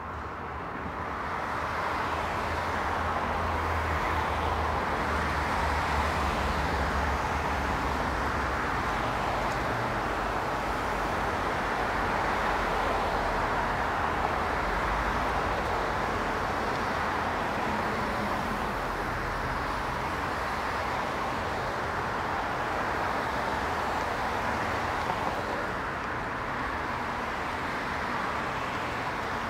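Street traffic: cars driving past on a multi-lane city road, an even wash of tyre and engine noise that builds over the first couple of seconds and then holds steady.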